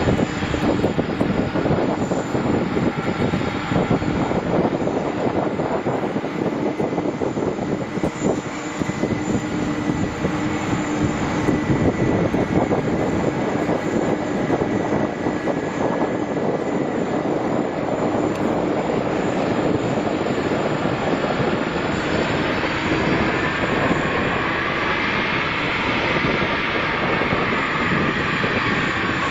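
Jet airliner engines running loud and steady, with a whine that rises and then falls in pitch over the last several seconds.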